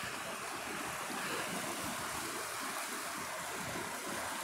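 Muddy flash-flood water rushing down a desert wash, a steady rushing noise that holds at an even level.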